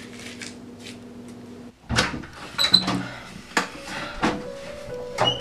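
Interior door being opened by its knob, with a series of sharp clicks and knocks from the knob and latch about once a second, starting about two seconds in. Before that there is a low steady hum, which cuts off suddenly.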